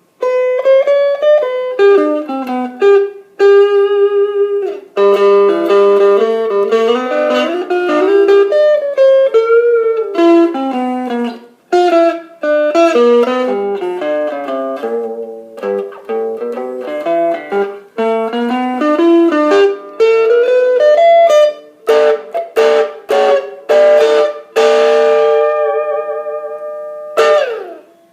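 Electric guitar played through a small solid-state practice amp with a 4-inch speaker: single-note melodic runs and chords, then quick strummed chords near the end with a downward slide. There is little bass.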